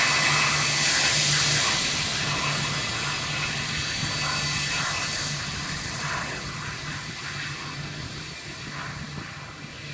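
Airbus A321-232's IAE V2500 turbofan engines at taxi power: a steady jet rush with a high whine, fading as the airliner moves away.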